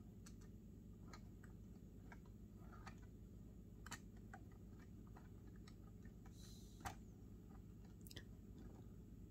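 Faint, scattered small clicks of a plastic model railroad boxcar's wheels and coupler against the track as it is worked onto the rails by hand, over a low steady hum; the sharpest click comes about seven seconds in.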